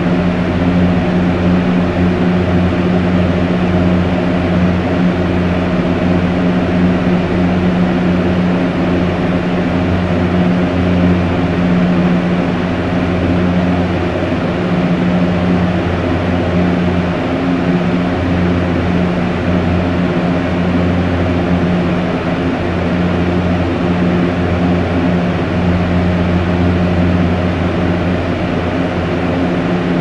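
Fan running on a strong setting: a loud, steady rush of air over a low, even motor hum.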